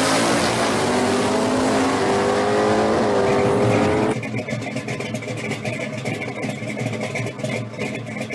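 1969 Camaro Z28 drag car's engine at full throttle as it pulls away down the strip, its pitch climbing and dipping twice. About four seconds in it cuts off abruptly to quieter background music.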